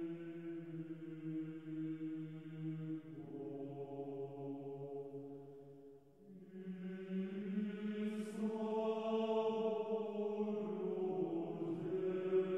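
Background music: a slow vocal chant of long held notes. It fades low about six seconds in, then swells into the next phrase.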